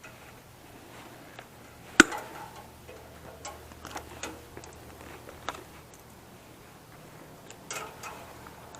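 Scattered clicks and knocks of metal parts and tools being handled while a server rack is taken apart, with one sharp metallic knock about two seconds in.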